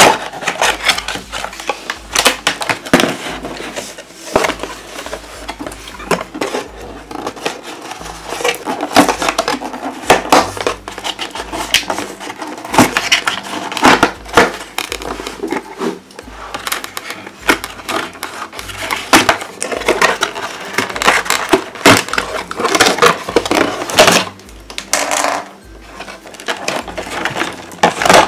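Unboxing noise from a cardboard toy box and its plastic packaging: irregular rustling, scraping, crackling and knocking as the plastic toy cash register is freed from its fasteners and lifted out.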